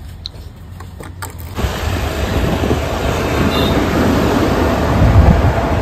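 A few faint clicks, then about a second and a half in, wind buffets the microphone with road and traffic noise while riding a motor scooter along a road.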